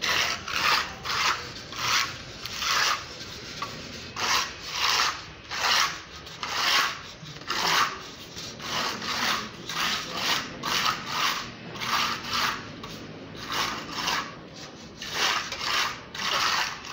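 Hand float rubbed back and forth over a textured wall coating, giving repeated rasping scrapes a little over one a second, each stroke rising and falling.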